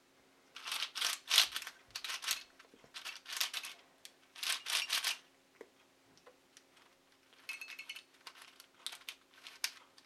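Dayan Wheels of Wisdom puzzle being turned by hand: its plastic pieces click and clatter in quick bursts of turns with short pauses between. The puzzle is very oily and kind of locky, locking up now and then.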